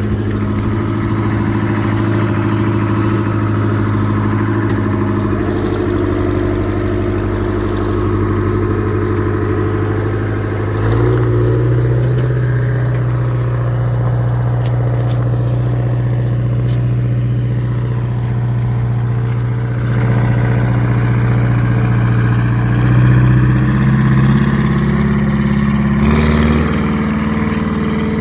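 Tractor engine running steadily, stepping up in speed and loudness about 11 seconds in and shifting again near the end.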